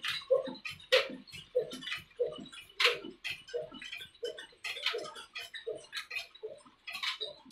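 Old Ruston Hornsby diesel engine running at a slow, even beat, about one and a half beats a second, with lighter clicking and clatter between the beats.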